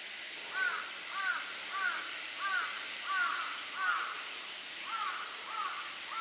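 A crow cawing: a series of about nine short caws, roughly two a second, with a short break past the middle, over a steady high-pitched drone of insects.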